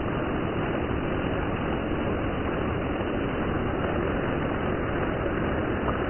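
Monsoon rain falling steadily: an even, dense hiss with no breaks.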